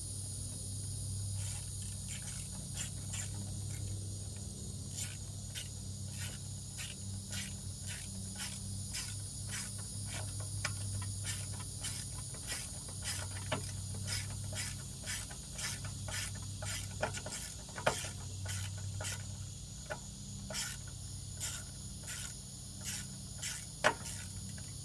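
Irregular small clicks and taps of hand work on a riding mower's parts, about one or two a second, over a steady low hum and a steady high-pitched insect-like whine.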